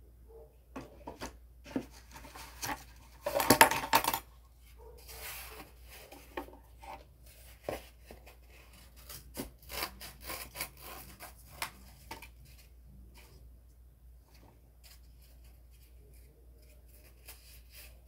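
Scissors cutting cardboard: a series of snips and crunches, with a louder burst of rustling and scraping about three to four seconds in, then only a few faint snips near the end.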